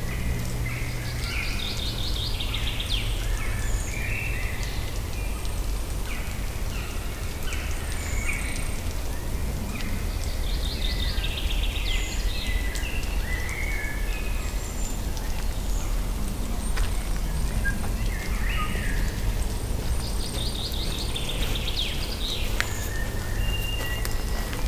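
Birds singing over a steady low rumble; one bird repeats a short song phrase about every nine seconds, with scattered high chirps between.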